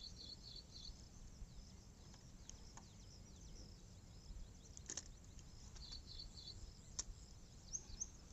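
Faint rural ambience: small high-pitched chirping calls repeating now and then, with two short sharp clicks about five and seven seconds in.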